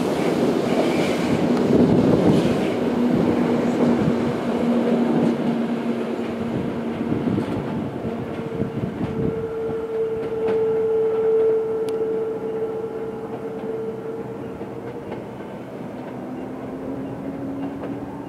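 Electric commuter trains running on the line: the rumble and clatter of a Toei 5300-series train fading as it pulls away, then a steady whine from a second train in the distance. The whine fades toward the end.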